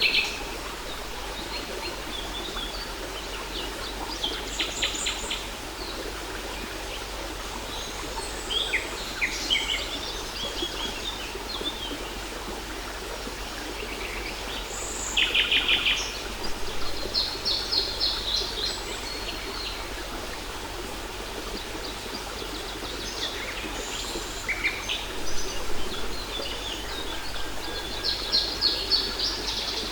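Birds singing over the steady rush of a waterfall. Short rapid trills of evenly spaced high notes recur every few seconds, mixed with scattered chirps.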